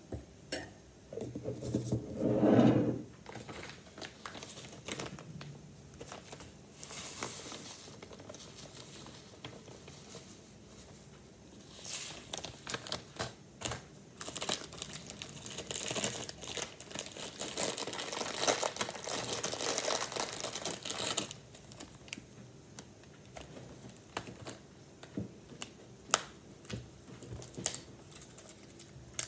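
Plastic food packaging crinkling and rustling in bursts, with a long stretch of crinkling in the middle, and scattered light clicks and snaps of crisp wafer pieces being broken near the end.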